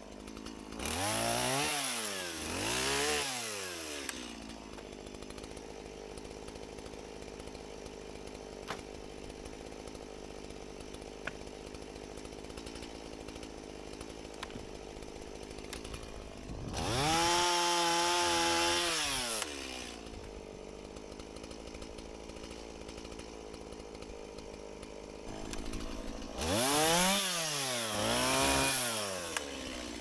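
Two-stroke gas chainsaw idling, revving up and back down twice near the start and twice near the end. About halfway through it is held at full speed for about two and a half seconds, dipping slightly as the chain cuts through a branch of a dead sugar maple.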